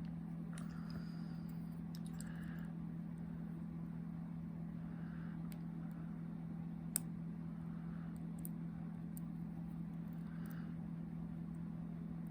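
Faint, scattered clicks and light scratching of a lock pick and tension wrench working the pins of a Viro padlock, with one sharper click about seven seconds in, over a steady low hum.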